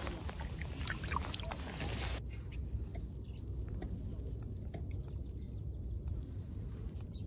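Low wind rumble on the microphone by the river, with faint water sloshing and a few small clicks. The hiss above it drops away abruptly about two seconds in.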